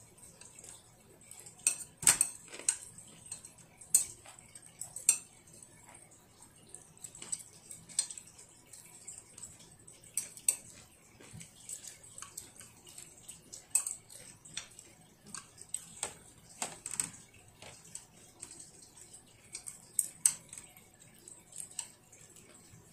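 Chopsticks clicking and tapping against a child's plate in irregular light taps, a little louder about two seconds in.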